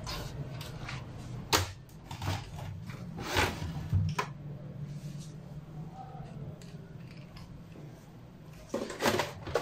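Opened Dell desktop computer cases being shifted about on a table: a few scattered knocks and clicks of the metal chassis, with more handling noise near the end, over a steady low hum.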